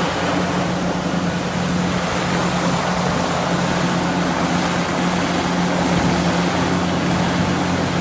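Caterpillar 6015B hydraulic mining excavator's diesel engine running steadily under load, a constant low drone.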